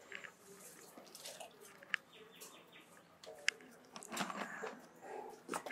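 Faint bird chirps with a few light clicks and a brief rustle about four seconds in as a plastic jar is handled.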